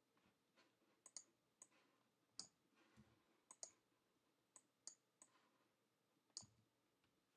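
Faint, irregular clicks of a computer mouse and keyboard, about a dozen in all, as code is selected and edited.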